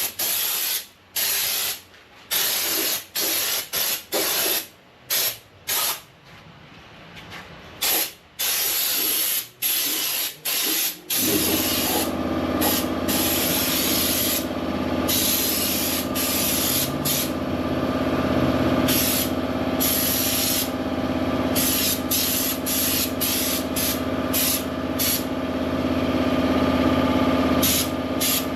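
Air spray gun spraying Raptor protective coating in short hissing bursts, starting and stopping with each trigger pull. About eleven seconds in, an air compressor starts up and runs steadily under further bursts of spray.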